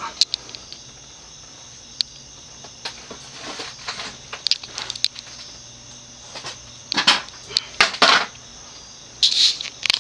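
Wing-TAT 56-inch industrial ceiling fan with a cast aluminum motor, running on medium speed: a steady low motor hum under a faint steady high tone. Several louder scuffs and clicks come about seven to nine seconds in.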